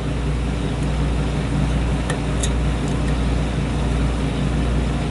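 Steady low hum of background machinery noise, with a few faint, quick ticks about two to three seconds in from lock picks working the pins of a pin-tumbler challenge lock.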